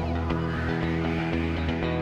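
Background music with sustained chords and held notes.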